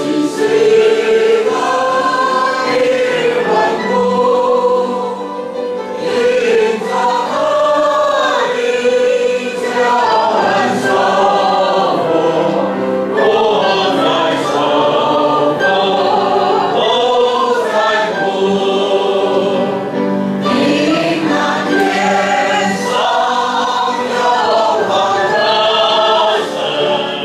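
A congregation singing a hymn together, the many voices holding one steady, continuous line.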